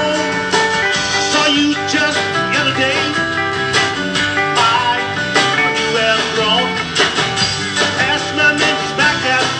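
A live band playing a rock number: electric guitar over a drum kit, with frequent drum hits.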